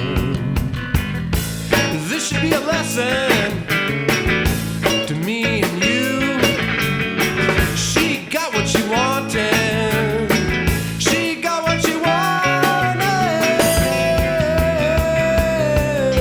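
Studio recording of a rock band playing (guitars, bass and drums), with a lead line that slides and bends in pitch and holds one long note in the last few seconds, bending down at the end.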